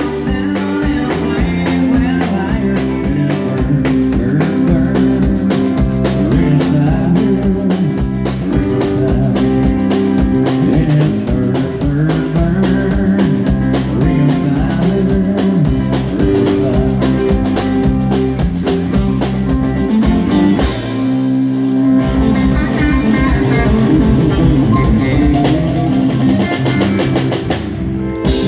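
Live country band playing with no singing: drum kit keeping a steady beat under electric bass, keyboard and pedal steel guitar. The drums and bass drop out for about a second two-thirds of the way through, then come back in.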